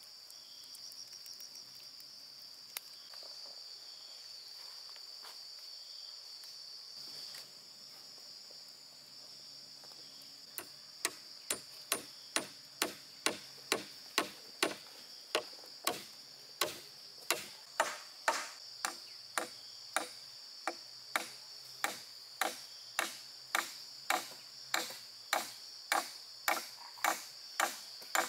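Steady, high-pitched insect drone, with a run of sharp, evenly spaced tool strikes starting about ten seconds in, about two a second.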